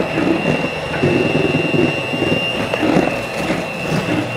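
Electric hand mixer running, its motor giving one steady high whine, as its wire beaters whip egg whites and sugar into meringue in a stainless steel bowl.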